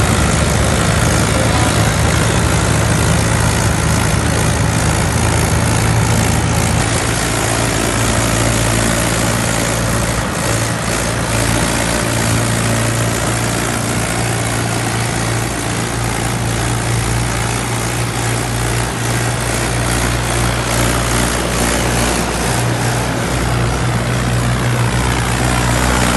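Diesel engines of Mahindra 475 tractors running steadily as the loaded tractors drive along the road: an even, low engine hum that barely changes in pitch.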